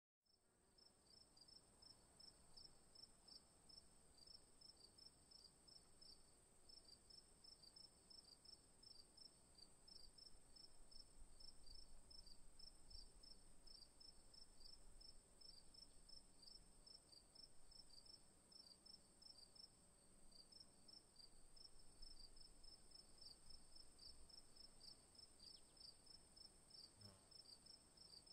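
Faint insects: a steady high-pitched drone with rapid, repeated high chirps over it, typical of crickets.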